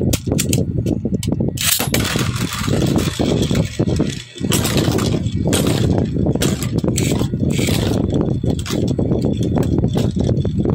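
Beyblade Burst spinning top launched into a stadium about two seconds in, then spinning and scraping across the stadium floor with a rushing hiss that fades after about eight seconds, over a steady low rumble.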